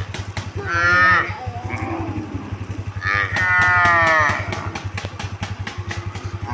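Cows mooing twice: a short call about a second in and a longer one about three seconds in, each falling in pitch. Underneath runs a steady, rapid low pulsing.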